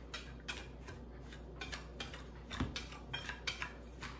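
Metal utensil stirring a dry spice rub in a stainless steel mixing bowl, with light, irregular clinks and scrapes against the bowl several times a second.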